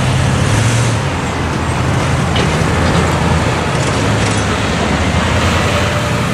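Road traffic: cars and pickup trucks driving past over the crossing, a steady rush of engine and tyre noise.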